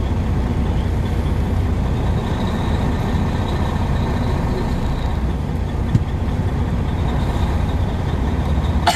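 Semi-truck's diesel engine running steadily, a low rumble heard inside the cab, with a sharp click near the end.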